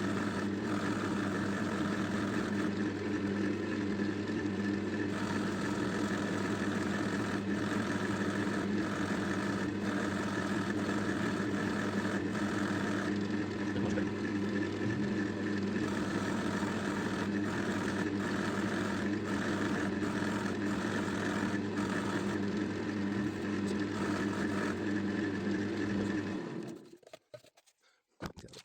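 Electric wood lathe running steadily with a constant motor hum, switched off near the end and winding down to silence.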